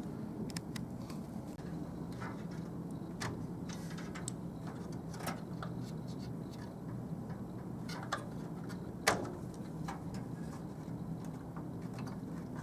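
Light plastic clicks and taps as DIMM retention clips are pressed open and RAM sticks are pulled from their motherboard slots, with one sharper click about nine seconds in. A steady low hum runs underneath.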